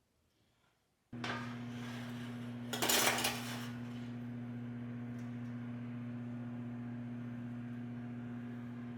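A kitchen appliance switches on about a second in and runs with a steady, unchanging electrical hum. Near three seconds a brief clatter of dishes or utensils sounds over it.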